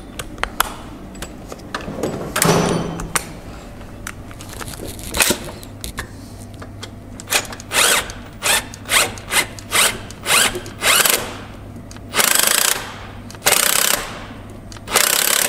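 Handheld cordless power tool running in a string of short bursts, then in three longer runs near the end, as it drives a fastener in the engine bay. A few sharp clicks and knocks of tool handling come before it.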